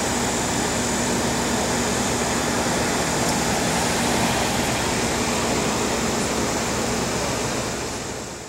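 Steady outdoor background roar with the low hum of a running car engine, fading out in the last second.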